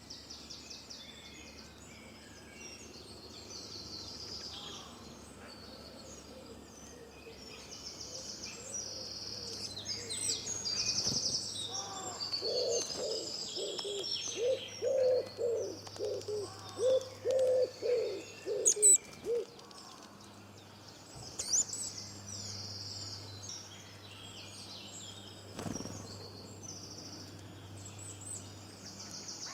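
Several birds chirping and singing at once, with a run of lower, repeated calls from about twelve to nineteen seconds in.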